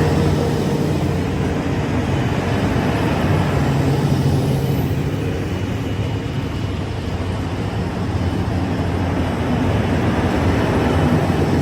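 Diesel train running by with a steady, loud low engine drone.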